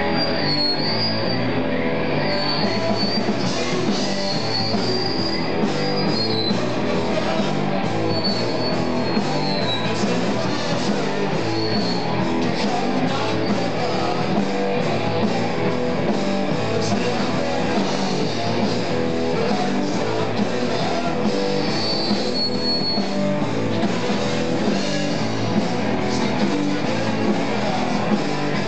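Live rock band jamming, electric guitars to the fore over a steady beat, heard from the room.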